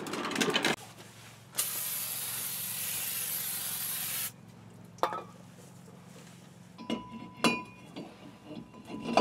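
An aerosol spray can hisses steadily for about three seconds as a new brake rotor is sprayed down. Near the end there are a few metallic clinks with a short ring as the rotor is slid onto the hub's wheel studs.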